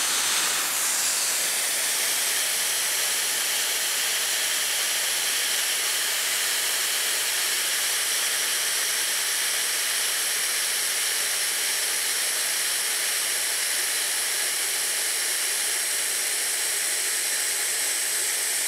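Compressed air rushing out of a Brute air compressor's tank through its pulled safety (pressure-relief) valve: a loud, steady hiss as the tank is emptied of pressure.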